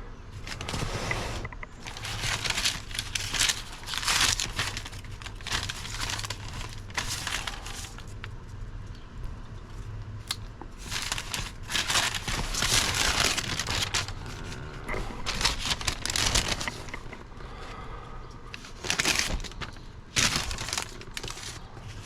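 Paper rustling and crinkling in irregular bursts as old service receipts are unfolded and handled.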